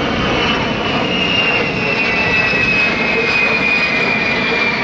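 Boeing E-8C Joint STARS, a four-engine 707-based jet with TF33 turbofans, flying overhead: a steady jet-engine noise with a high whine that slowly falls in pitch as it passes.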